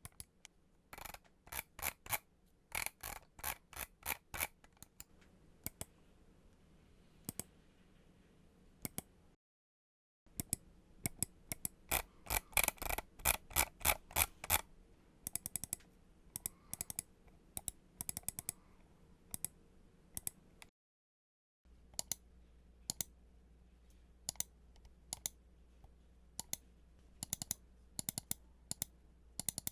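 Clicking of computer keyboard keys and mouse buttons in three separate recordings, split by two brief cuts to silence. The middle recording has a fast, loud burst of clicks. The last has sparser, evenly spaced clicks over a low hum.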